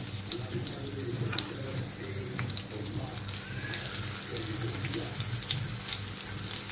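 Red snapper fillets sizzling in hot oil in a frying pan: a steady hiss with scattered small pops and crackles.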